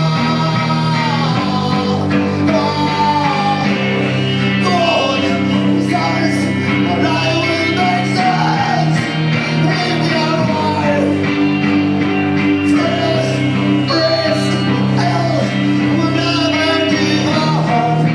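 Live rock band playing: steady bass and guitar chords under a melody line that bends and glides.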